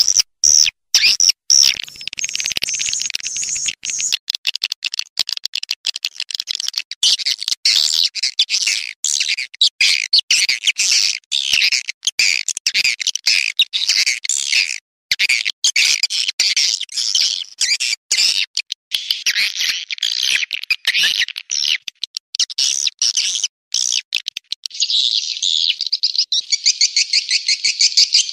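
Edible-nest swiftlet calls played as a swiftlet-house lure track: a dense, loud run of high twittering and chattering chirps chopped by many brief gaps, turning about three-quarters of the way through into a fast buzzing trill.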